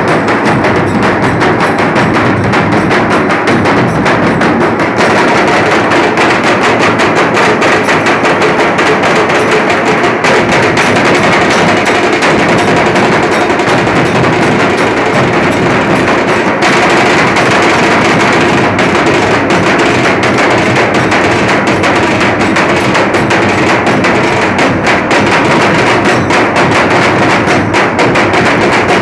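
Nashik dhol band: several large barrel-shaped dhol drums beaten with sticks in a fast, dense, unbroken rhythm, very loud.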